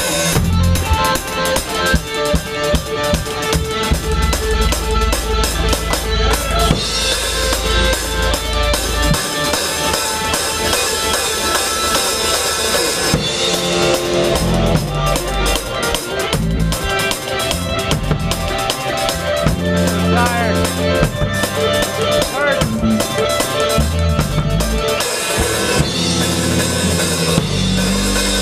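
Live rock band playing, heard from the drummer's seat through a head-mounted camera. The drum kit is loudest, with a steady beat of bass drum, snare and cymbals, and guitars play over it.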